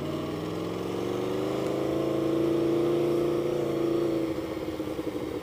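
2015 Aprilia Tuono V4's V4 engine through a GPR Thunderslash exhaust with the baffles out, heard from the rider's seat. The revs climb gently under light throttle, hold for a second or two, then drop about four seconds in and settle to uneven low revs.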